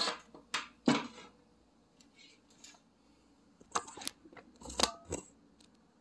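Crimping pliers squeezing the bare metal barrel of a ring terminal onto a stranded wire: several short crunching clicks, a cluster near the start and another about four to five seconds in.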